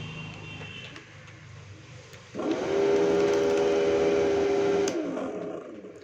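A 12 V DC motor in a homemade plastic-bottle vacuum cleaner spins up about two seconds in, runs with a steady hum for about two and a half seconds, then winds down. It is a brief test run, powered once the battery lead is connected.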